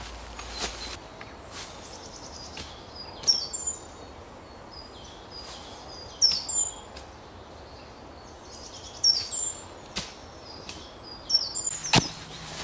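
Birds singing in woodland: a short phrase of high, falling whistles and a quick trill, repeated about every three seconds over steady outdoor background noise. A few sharp knocks come through, the loudest near the end as a spade strikes into the soil.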